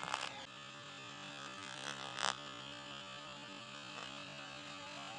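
Radio-controlled helicopter running at a distance, a steady droning hum from its rotor, with short bursts of noise at the start and about two seconds in.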